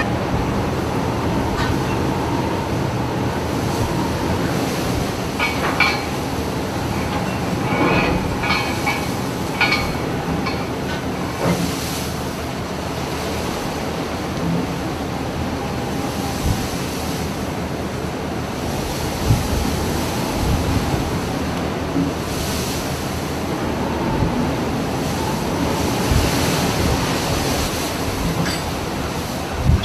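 Steady mechanical rumble of a river barge ferry loaded with dump trucks as it comes in to the bank, with a few sharp knocks between about five and ten seconds in.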